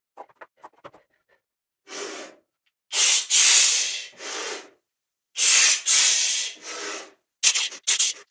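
A woman's heavy, forceful breaths: loud puffed exhales through the mouth, two long ones in the middle and a quick run of short ones near the end. A few faint clicks come before them.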